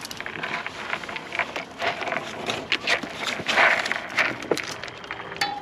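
Raccoons scrabbling and rustling, with claws scraping and knocking on a hanging cardboard tube as one climbs through it: a run of irregular scratches and light knocks, loudest about three and a half seconds in.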